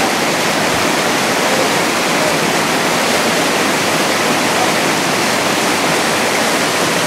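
Steady rush of flowing river water over rocks, an even hiss without breaks.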